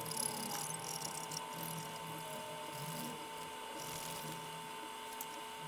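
Faint, light scraping as liquid metal is spread across the PS5's APU die, in two short spells, over a steady thin electrical whine and hum.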